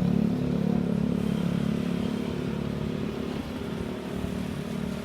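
A road vehicle's engine running with a steady low drone, gradually fading as it moves away. No siren is sounding.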